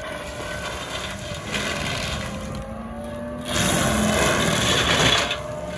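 A Case TV620B compact track loader's diesel engine running under load, driving a Loftness Battle Ax forestry mulcher whose spinning toothed drum is grinding a stump down into the dirt. The grinding grows louder and rougher for a couple of seconds past the middle.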